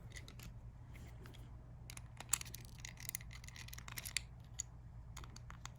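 Scattered light clicks and scrapes of small plastic steering-wheel parts and a screw being handled, over a faint steady low hum.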